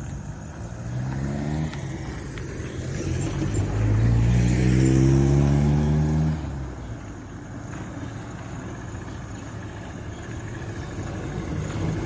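Motor vehicle engine accelerating past, its pitch rising until about a second and a half in, then rising again, louder, from about three seconds in before dropping away just after six seconds. A steady low rumble continues under it.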